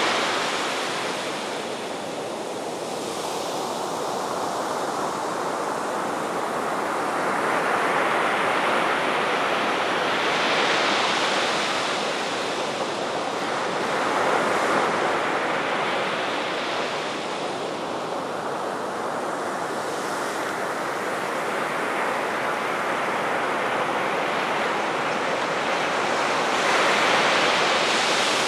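Ocean surf breaking on a sandy beach: a continuous rushing wash that swells and eases every few seconds as each wave crashes and runs up the shore.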